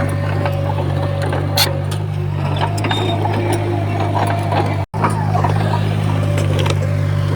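Heavy diesel engine of earthmoving machinery running steadily, with scattered sharp metallic clicks and clanks. The sound cuts out for an instant about five seconds in.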